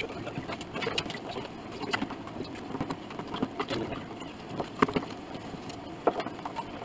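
Irregular wooden clicks and knocks from hands fitting wedges and clamps against the ribs of an upright piano's soundboard, with a few sharper knocks about five and six seconds in.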